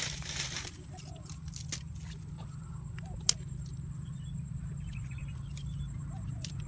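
Sticks being handled and laid across a small water-filled hole in sandy soil, with rustling and a few short sharp clicks, the loudest about three seconds in. A steady low rumble and a thin high-pitched tone run underneath.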